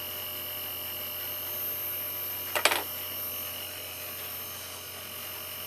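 Steady electrical hum with a faint high-pitched whine, broken once about two and a half seconds in by a single sharp click or knock.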